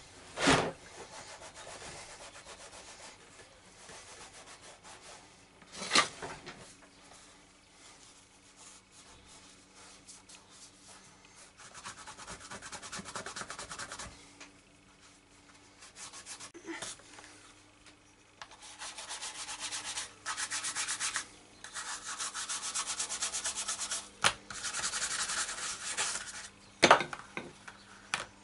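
Cotton cloth rubbed briskly over a leather pouch, buffing in wax, in spells of rapid strokes that grow longer and louder in the second half. Three sharp knocks stand out: near the start, about six seconds in and near the end.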